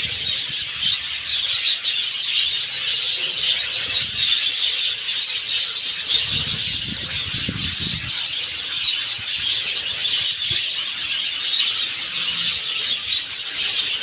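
A large flock of budgerigars chattering, a dense, continuous high-pitched twittering of many birds at once.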